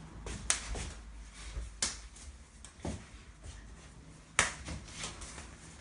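Irregular sharp slaps of hands and forearms meeting and striking during Wing Chun chi sao (sticky hands) practice, with the loudest slap about four and a half seconds in.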